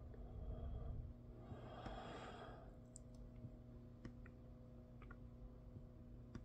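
Quiet room with a steady low hum, a few faint sharp clicks, and one soft breath-like exhale about two seconds in.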